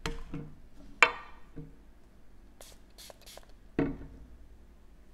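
Handling of a Bath & Body Works body mist spray bottle: a few quick hissing spritzes from its pump, then the bottle set down with a knock on a glass tabletop near the end.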